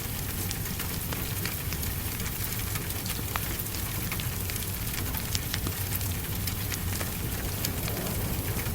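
Steady rain on glass mixed with a crackling wood fire: a constant hiss of rain under a low steady rumble, with scattered sharp pops and ticks from the fire.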